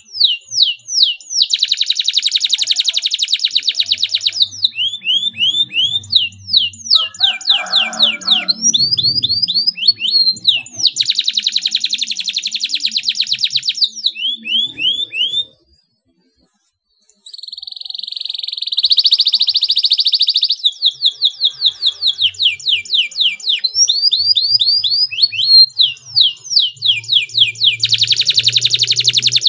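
Domestic canary singing: runs of quick slurred whistles alternating with long, very fast tight rolls. The song breaks off for under two seconds a little past halfway.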